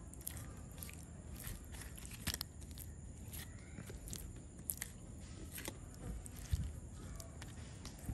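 Fingers rubbing wet masala paste into a whole pink perch on a banana leaf: faint, irregular soft squishes and light taps, a few every second or two.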